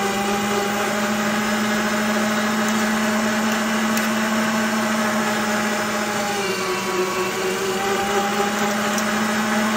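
Electric meat grinder running steadily under load, grinding cooked pork and liver for boudin, a steady motor hum whose pitch sags slightly partway through.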